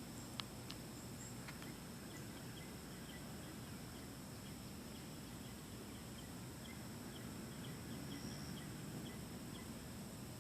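Outdoor insect chorus: a steady high-pitched drone of crickets or similar insects, with faint scattered chirps and a single sharp click about half a second in.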